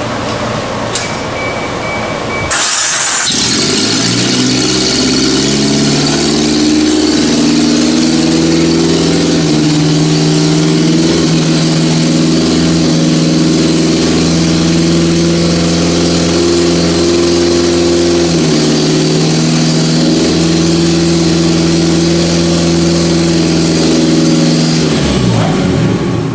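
1990 Geo Tracker's 1.6-litre four-cylinder engine starting about two and a half seconds in and running steadily with no exhaust system fitted, then shutting off near the end. A brief high steady tone sounds just before it starts.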